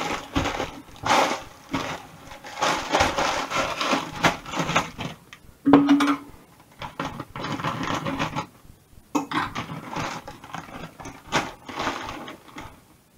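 Plastic freezer bags of frozen peas and sweet corn crinkling and rustling in stretches as they are handled and clipped shut. A brief low tone, the loudest moment, sounds about halfway through.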